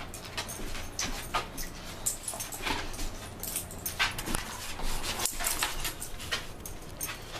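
An English Bulldog and a Greater Swiss Mountain Dog moving about and nosing each other close up. Irregular clicks, scrapes and jingles run throughout, with a few louder short dog sounds about one and a half, four and four and a half seconds in.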